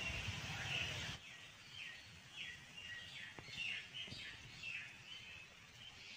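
A low rumble that stops about a second in, then small birds chirping: a quick run of short, falling chirps, with a couple of faint clicks.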